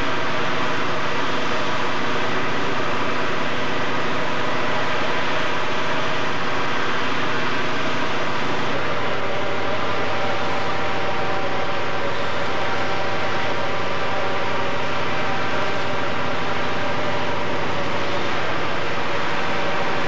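An engine running steadily at a fire scene, keeping a constant note throughout, with a slight change in its low hum about nine seconds in.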